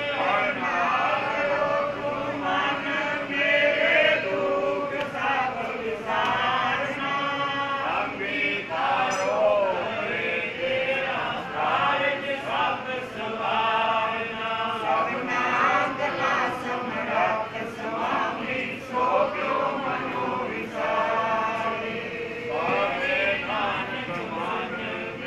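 A group of men's voices chanting together without pause, a devotional congregational chant.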